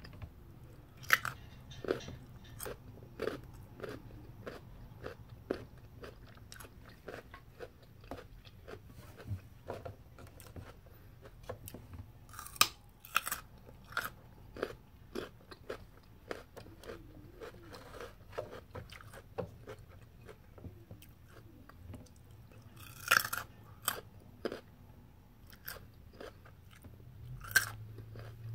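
Close-up chewing and crunching of food in the mouth: many short crisp clicks in an uneven run, with a few louder crunches spread through it.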